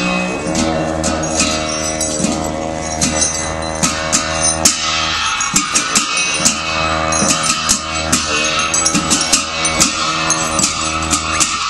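Music accompanying a Bhutanese Pawo dance: a steady low drone under a melody that steps from note to note, with frequent sharp percussion strikes.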